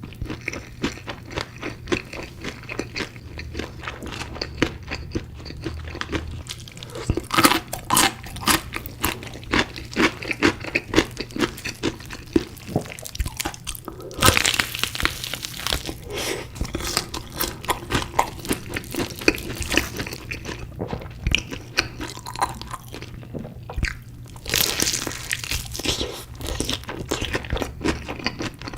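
Close-miked eating of crispy chicken pieces: a dense run of crisp crunches as they are bitten and chewed, with several louder bursts of crunching.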